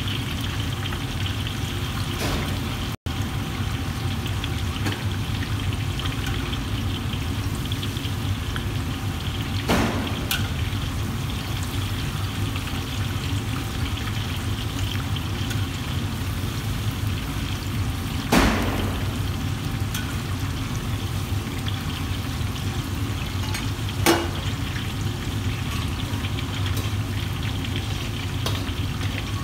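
Oil bubbling and sizzling steadily in large woks of deep-frying food over a steady low rumble, with a few sharp knocks spread through.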